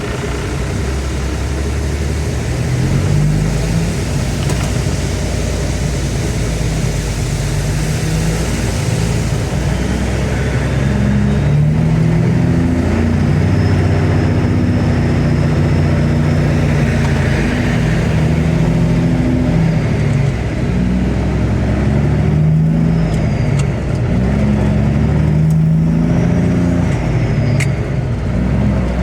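Diesel engine of a heavy farm vehicle driving under way, its engine speed stepping up and down several times as it pulls away and changes gear.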